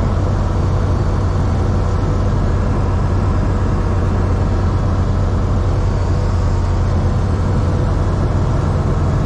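The Grob G109B's Rotax 912 flat-four engine and constant-speed MT propeller droning steadily in flight, heard from inside the cockpit.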